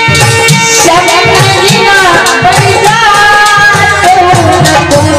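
Live Hindi devotional folk song: hand drums keep a steady beat while a woman's singing voice comes in about a second in over the accompaniment, with a held instrumental note before it.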